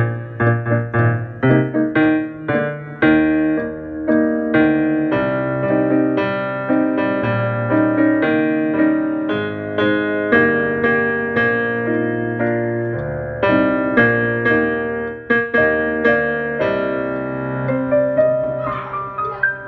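Piano playing a run of struck chords and melody notes in a steady rhythm.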